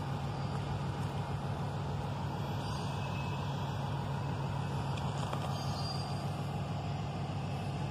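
Steady low rumble and hum of vehicle engines, unchanging throughout.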